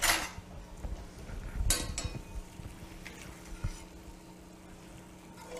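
A ladle clinking and scraping in a pan as gravy is scooped out into a glass cup, with two louder clatters, one at the start and one nearly two seconds in, then a few light taps, over a steady low hum.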